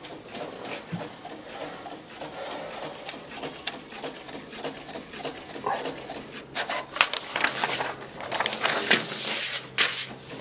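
Brother printer printing a page: a run of clicks and mechanical paper-feed noise, busiest and loudest in the second half.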